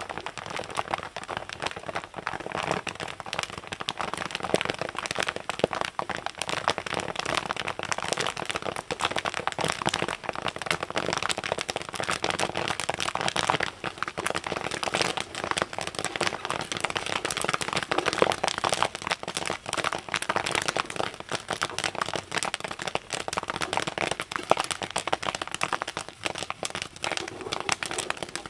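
Corn kernels popping in woks of hot oil: a dense, continuous crackle of many pops each second over the sizzle of the oil.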